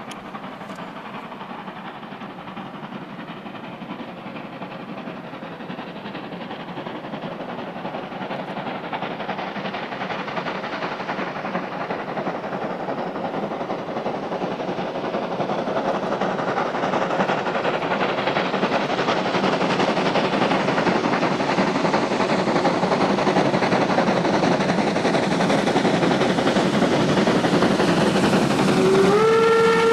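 Steam-hauled train with German class 50 and class 52 steam locomotives approaching, its exhaust and running noise growing steadily louder as it nears. Near the end a steam whistle starts blowing, sliding up briefly into one held chord.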